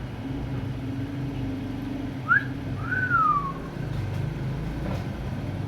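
Parrot whistling twice: a short rising whistle, then a longer one that rises and slides back down, over a steady low hum.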